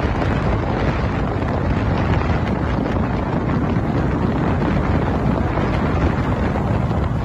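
Steady rush of a fast passenger speedboat running at speed on open water, with wind buffeting the microphone and no distinct engine pitch standing out.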